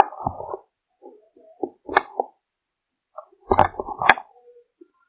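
A few sharp clicks and knocks with brief clattering, in three short clusters about two seconds apart.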